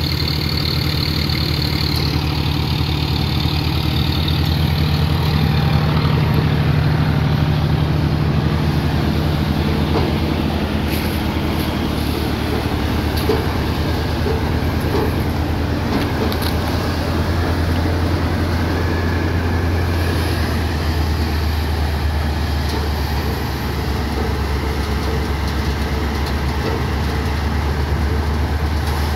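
Surjeet six-fan thresher running steadily under load as crop is fed in, driven by a John Deere 5038D tractor's three-cylinder diesel engine: a constant machine drone of engine, threshing drum and fans.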